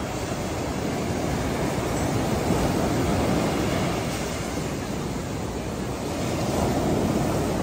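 Ocean surf breaking and washing up the sand as a steady rushing, swelling louder about a third of the way in and again near the end as waves come in.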